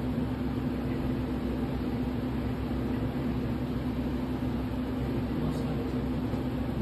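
Steady mechanical hum of café equipment, a constant low drone with a hiss over it, with one faint light tick near the end as the cup is set down on the counter.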